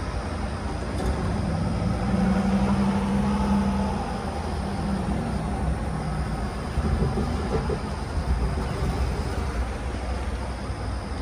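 Road traffic passing over the crossing: a semi-truck's engine and tyres with passing cars, a steady low rumble with an engine note that swells about two seconds in.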